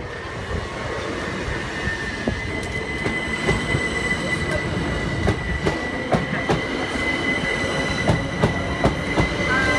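A Southern Class 377 Electrostar electric multiple unit running through the station past the level crossing, with a steady high whine over the rumble of the wheels and sharp clacks as the wheels pass over rail joints, growing louder as it goes.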